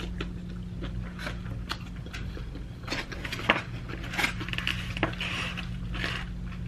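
Close-up eating sounds: chewing on lo mein, with scattered light clicks and taps of a plastic fork and hands against a takeout container, over a steady low hum.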